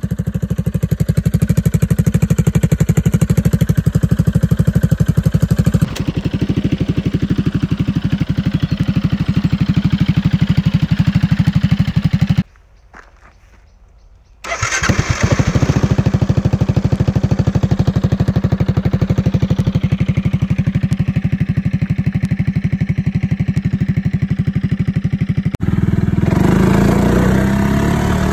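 Piaggio MP3 500 scooter's single-cylinder engine running through an aftermarket replica Akrapovic exhaust, with a steady, even exhaust beat. About halfway through it goes quiet for a couple of seconds, then starts up again. Near the end it runs louder and rougher.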